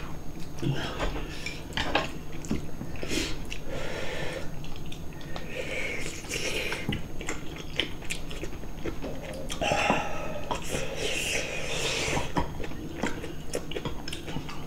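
Two people eating soft boiled scorched-rice porridge (nurungji) and side dishes: chewing, with scattered short clicks of chopsticks and spoons against ceramic bowls.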